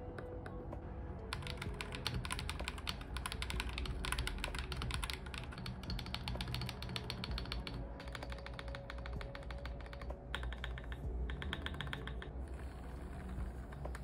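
Fast typing on an Akko 5075B Plus gasket-mount mechanical keyboard with yellow switches: a dense run of key clacks, a short break about eight seconds in, then a few shorter bursts of typing that stop near the end.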